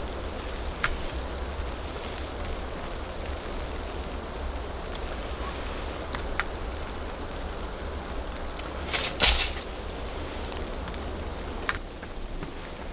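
Steady hiss of heavy wet snow falling on and around a hunting ground blind, with a low wind rumble underneath. A few faint ticks, and a short rustling noise about nine seconds in.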